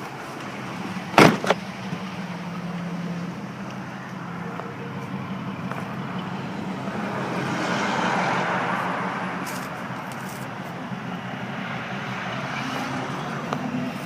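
Chevrolet Silverado pickup's engine idling steadily, with a sharp knock about a second in and a swell of rushing noise around the middle.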